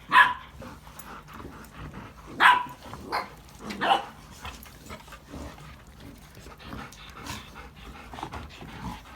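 Golden retrievers barking in play: four short, sharp barks in the first four seconds, then quieter.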